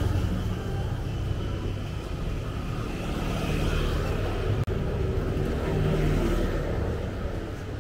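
Street traffic: a motor vehicle's engine running steadily close by over the general noise of a busy city street. The sound cuts out for an instant a little past halfway.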